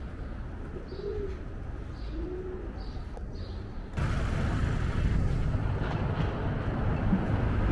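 Pigeons cooing in short low calls, with faint high bird chirps, over a steady city hum. About halfway through, a louder steady rushing noise takes over.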